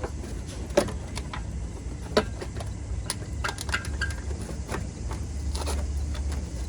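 Scattered sharp clicks and light knocks of car bumper parts being handled and worked loose, over a steady low hum.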